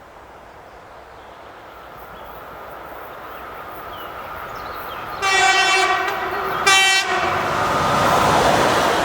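EP2K electric locomotive with a passenger train approaching, its running noise growing louder; it sounds its horn in one long blast and then a short one, and the train's noise rises as it draws level.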